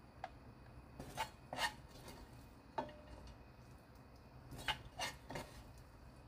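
Spatula scraping and tapping as sticky, sauce-coated dried filefish strips are scooped from a frying pan into a food container: several short scrapes, in a cluster about a second in, a single one near the middle, and another cluster near the end.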